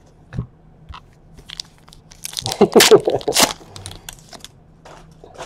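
Foil wrapper of a trading card pack crinkling and tearing as it is ripped open, a loud crackling burst lasting about a second and a half in the middle. A soft knock comes just before it, near the start.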